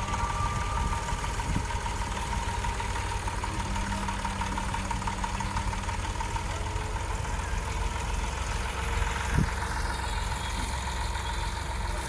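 An engine running steadily at a low, even speed, with a single short knock about nine seconds in.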